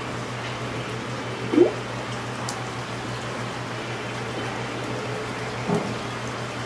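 Steady low hum and background noise of a small self-service shop, broken by two short rising chirps: a louder one about a second and a half in and a fainter one near the end.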